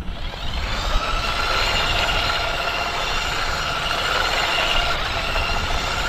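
Toy remote-control car's small electric motor and gears giving a steady whine as it drives on asphalt, over a low rumble.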